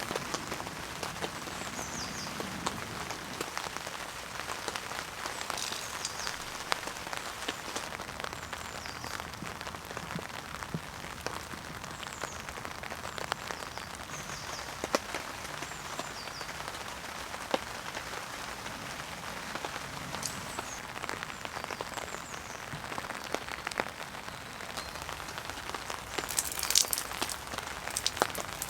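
Heavy rain falling steadily on tent fabric, a dense patter of drops, with short high bird chirps now and then and a brief louder rustle near the end.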